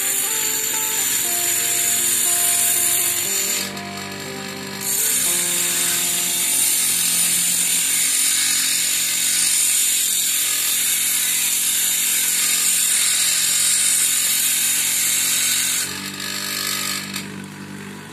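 Angle grinder running while a thin stainless steel rod is held against its disc: a steady, high hiss of metal being ground. The hiss drops out for about a second around four seconds in as the rod is lifted off, then resumes and stops about sixteen seconds in. This is the rod being smoothed down to fit inside the barrel.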